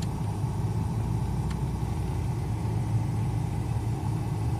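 Vehicle engine running and tyres on a dirt road, heard from inside the cab as a steady low rumble, with a faint click about a second and a half in.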